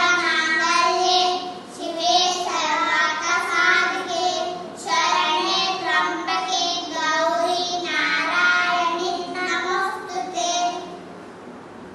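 Two children chanting a shloka in a sing-song melody, in continuous phrases that stop shortly before the end.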